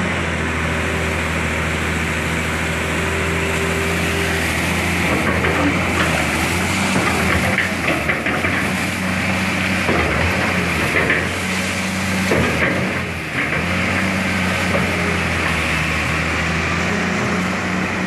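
Diesel engine of a Cat 325L hydraulic excavator running steadily under load. From about five to thirteen seconds in, irregular clattering and knocks as wet river gravel is swung over and dropped into a steel dump-truck bed.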